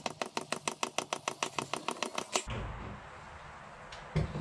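Hand-operated oil pump clicking rapidly and evenly, about eight clicks a second, as gear oil is pumped into a differential. The clicking stops about two and a half seconds in, leaving a steady hiss, and there is a short knock near the end.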